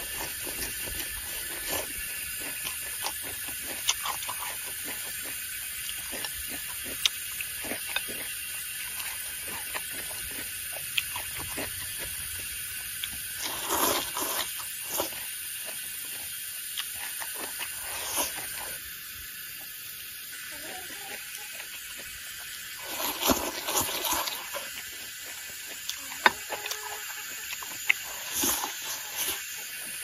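Eating sounds: chewing and mouth noises, with scattered sharp clicks of chopsticks against a bowl and a few louder bursts of chewing about halfway through and again later. A steady high hiss of outdoor background runs underneath.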